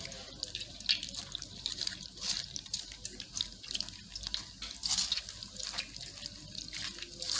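Fingers squishing soaked tamarind pulp against a stainless steel mesh strainer: irregular wet squelches, with the strained pulp liquid dripping into the steel bowl below.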